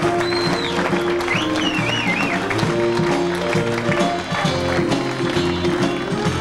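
A live band playing music with a repeating bass line, while a crowd claps and applauds.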